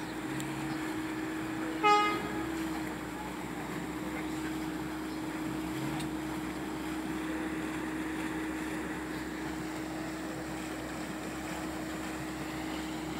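An off-road 4x4's engine running at a steady pitch, with one short horn toot about two seconds in.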